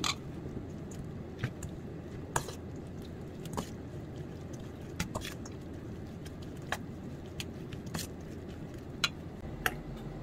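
Metal spoon tossing seasoned soybean sprouts in a stainless steel bowl: irregular sharp clinks of the spoon against the bowl, about one a second, over a steady low background hum.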